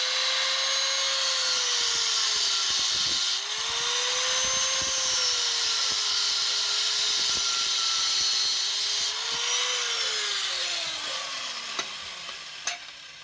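A small high-speed electric power tool running steadily at full speed for about ten seconds, then released and winding down, its whine falling in pitch as it coasts to a stop.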